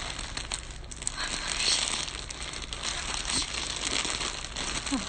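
Crinkly packaging rustling and crackling as hands pull at it, struggling to open it, denser and louder from about a second in.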